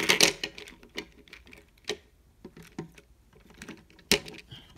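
Handling noise from a plastic toy train being turned over and moved by hand: scattered light clicks and knocks, the sharpest a single click about four seconds in.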